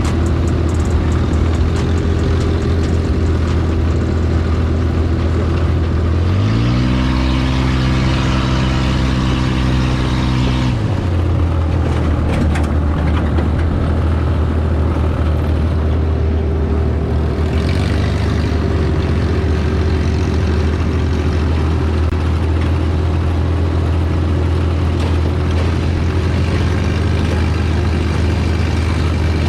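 Off-road buggy engine running steadily under a rough rattling haze. About six seconds in it revs up to a higher pitch, holds for about four seconds, then drops back down.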